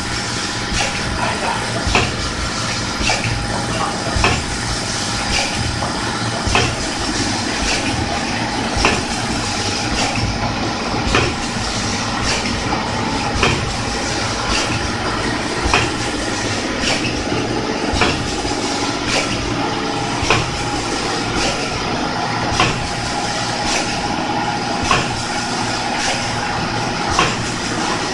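Vertical form-fill-seal pouch packing machine running: a steady mechanical hum with a sharp clack a little more than once a second, one per packing cycle as the sealing and cutting jaws close on each pouch.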